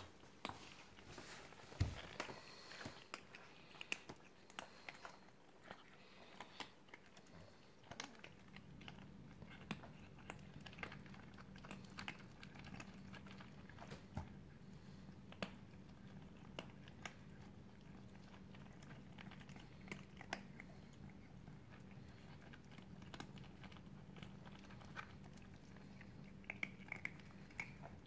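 Several cats eating from a plastic tub, chewing with many small, sharp crunches. A faint low, steady hum comes in about eight seconds in.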